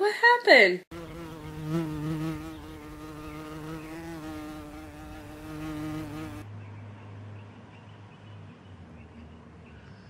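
A child's loud high squeal gliding in pitch, lasting under a second at the start. Then a flying insect buzzes steadily for about five seconds, its pitch wavering slightly, and it gives way to a fainter, lower hum for the rest.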